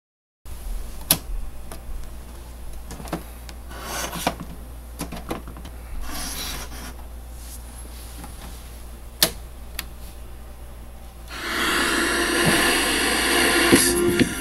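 Clicks and knocks of a JVC RC-M70JW boombox's piano-key buttons and controls being pressed, then about eleven seconds in the boombox's radio comes on through its speakers with a loud, steady hiss as it is being tuned.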